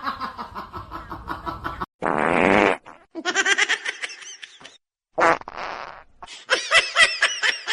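Two short, loud, raspy fart-like blasts about three seconds apart, with a voice-like sound between and after them.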